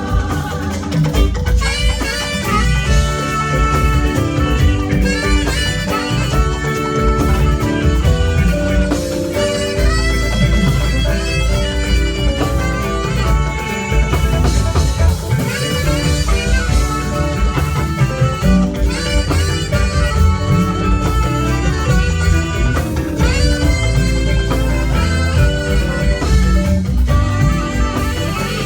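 Instrumental band music with a drum kit and melodic lines, playing continuously without singing.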